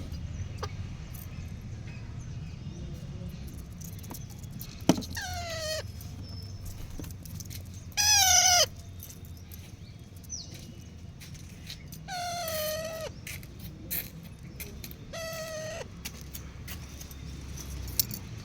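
Baby parrot calling four times, drawn-out squawks about three seconds apart, each dipping in pitch at its end, the second the loudest. A steady low hum runs underneath.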